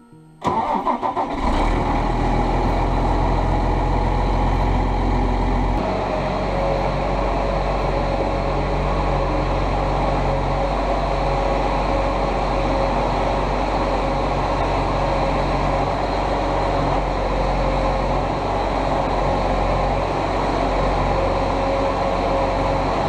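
Tractor engine starting about a second in, then running steadily. About six seconds in, its note changes and a steady whine joins the low rumble.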